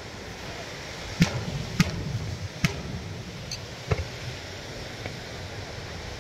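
Aerial firework shells bursting with sharp booms: four in the first four seconds, then a fainter one, over a steady background hiss.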